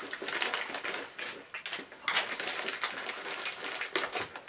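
Plastic snack bag of peanuts crinkling and rustling in irregular bursts as a hand rummages inside it.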